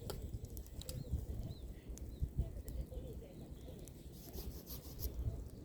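Pruned apple branches burning in a bonfire: the wood crackles with scattered sharp pops over a low, steady rumble of the fire.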